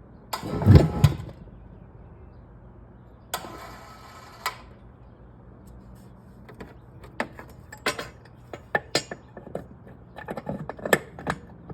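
Metal mounting brackets and pins being handled: a heavy thump and scrape about half a second in, a rasping scrape around three to four seconds, then a run of sharp clicks and knocks as the parts are fitted.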